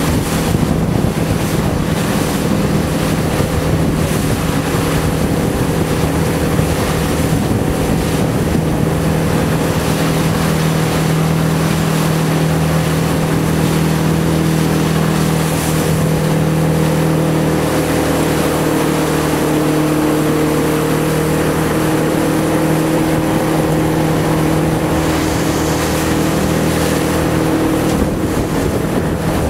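Motorboat engine running steadily, its pitch shifting slightly partway through, with wind noise on the microphone and water washing past.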